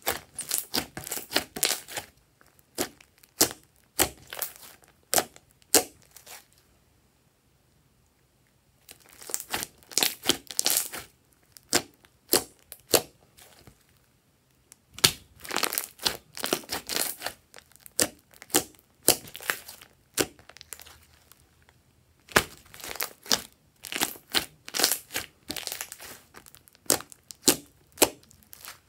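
Glossy slime being squeezed, pressed and poked by hands, giving rapid runs of sharp clicks and crackles, in several spells with short quiet gaps between.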